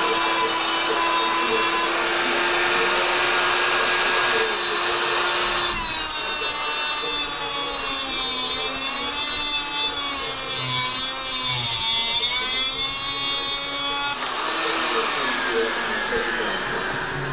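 Small electric angle grinder grinding a metal part clamped in a vise, running loud and steady with a high whine whose pitch wavers as the load changes. About 14 seconds in it is switched off and winds down with a falling whine.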